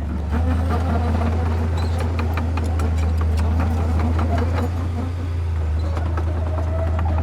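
Diesel engine of heavy earthmoving machinery running steadily, with scattered clanks and clicks over the drone.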